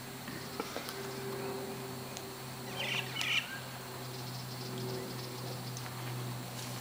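Two short, raspy calls from sulphur-crested cockatoos about three seconds in, over a steady low hum.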